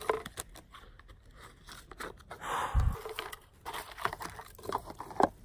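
Handling and shuffling a deck of tarot cards: irregular light clicks, scrapes and rustles of the cards, with a low thump about three seconds in and a few sharper snaps near the end.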